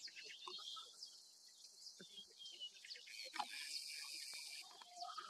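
Faint bush ambience: scattered short bird chirps over a steady high insect hiss, with a few soft ticks.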